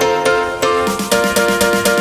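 Background music: plucked notes repeating in a quick, even rhythm, with a change of chord about a second in.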